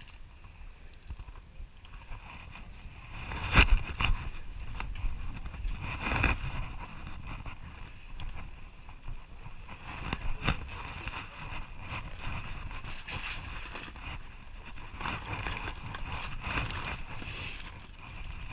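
Steady rumble and hiss of a boat at sea, with scattered knocks and rustling as fishing gear and a duffel bag are handled. The sharpest knocks come a few seconds in.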